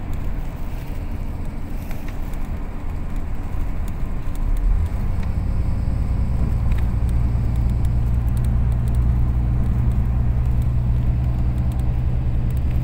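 Engine and road noise of a moving vehicle heard from on board, a steady low rumble with a hum that gets louder about four and a half seconds in.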